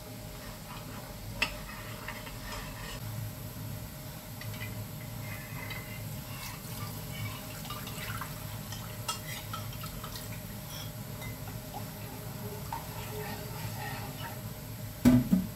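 Thin cornstarch sauce poured from a bowl into a frying pan and stirred with a metal spoon: liquid pouring and sloshing, with a few light spoon clinks and a louder clatter near the end.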